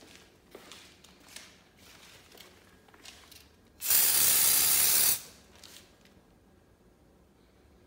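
Aerosol spray can sprayed in one long, steady hiss lasting about a second and a half, a few seconds in, with a few faint short noises before it.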